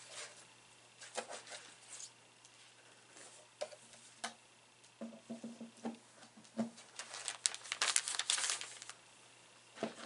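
Handling of sewing materials: cloth and paper rustling and crinkling, with scattered light taps and clicks. The rustling is busiest from about seven to nine seconds in.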